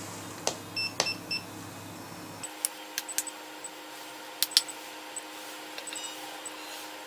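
Plastic buttons clicking and a SINGCALL APE6800 mobile pager receiver giving three quick short beeps about a second in, then more scattered clicks and faint high beeps, as call pagers are pressed to register them.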